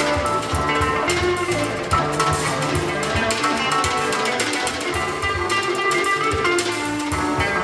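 Live jazz combo music: an electric guitar playing over a drum kit with cymbals.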